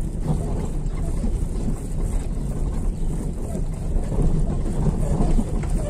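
Steady road noise heard from inside a slowly moving vehicle: engine and tyres rumbling over a street of interlocking concrete paving blocks, with some wind buffeting the microphone.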